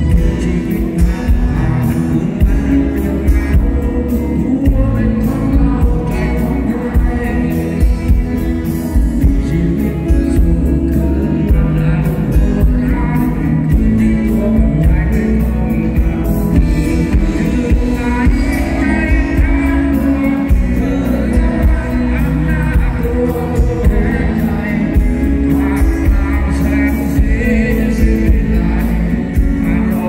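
Live Thai folk-rock band playing loud through a PA: a male lead vocal sings over acoustic guitar, keyboards and a heavy bass backing.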